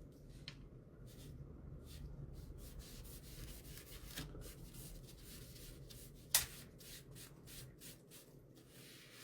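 Sponge brush rubbing glaze onto a wooden shelf piece in a series of short, irregular strokes, with one sharper click about six seconds in.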